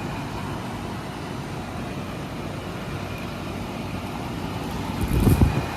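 Outdoor air conditioner condensing units running: a steady fan and compressor noise with a low hum. Near the end a brief, louder low rumble rises over it.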